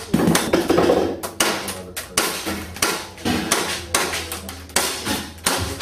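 Airsoft gas blowback pistol firing a quick string of sharp shots, about two to three a second and irregularly spaced, during a timed practical shooting stage.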